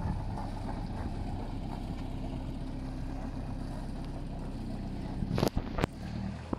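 Perkins 4.108 four-cylinder diesel of an Ocqueteau Alienor 680 motorboat running at a steady speed. Two sharp knocks come close together near the end.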